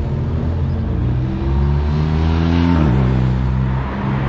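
A car drives past close by. Its engine note climbs as it comes up and drops sharply in pitch as it goes past, a little under three seconds in.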